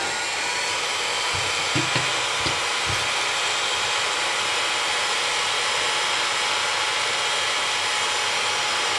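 Hot air rework gun blowing a steady rush of hot air onto a phone logic board to desolder a plastic battery connector. A few faint low knocks come in the first three seconds.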